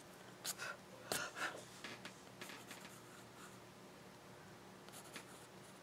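Paintbrush strokes on watercolor paper: a few faint, short swishes and scratches.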